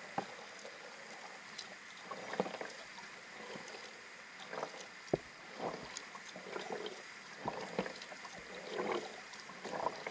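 Water lapping and splashing against a kayak in small irregular bursts, about one a second.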